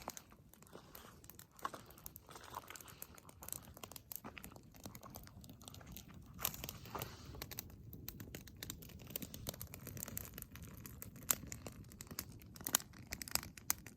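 Irregular crackling and crunching, many small sharp clicks and crinkles scattered throughout, over a faint low rumble.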